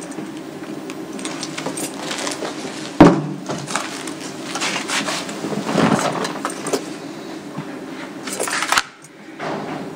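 Objects being handled on a sideboard: scattered small clinks and rustling, with one sharp knock about three seconds in.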